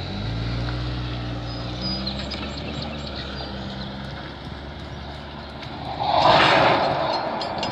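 Freight train of black tank cars rolling slowly past during yard switching, with a steady low engine hum over the first few seconds and a loud burst of hiss about six seconds in.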